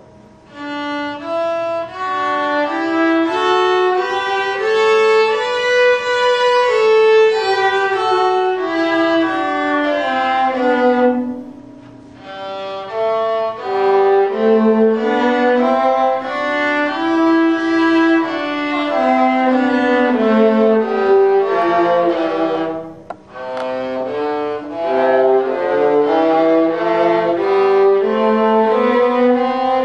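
Viola duet: bowed viola playing a melody of quick separate notes alongside a second bowed string instrument, with two short breaks about 12 and 23 seconds in.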